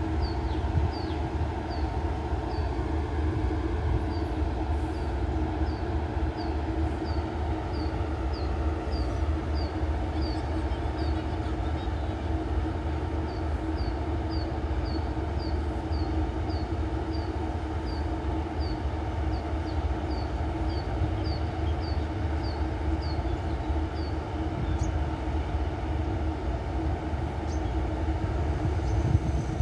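Diesel railcar of a special express train idling while it stands at the station, a steady low hum. Short high chirps repeat about twice a second over it, stopping a few seconds before the end.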